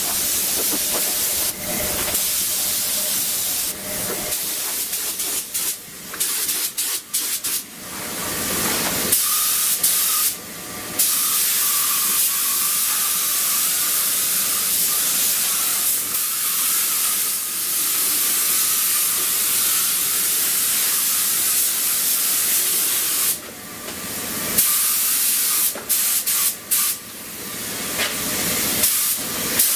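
Compressed-air gravity-feed spray gun hissing steadily as it sprays the coat. The hiss stops briefly each time the trigger is let go, several times in quick succession in places.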